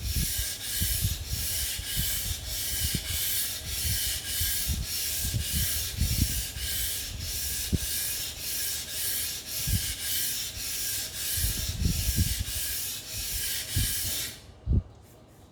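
Kitchen knife stroked back and forth on a whetstone with a clip-on 15-degree angle guide on its spine, the guide's runners sliding on the stone: an even, rhythmic grinding rasp of about two strokes a second, which stops near the end.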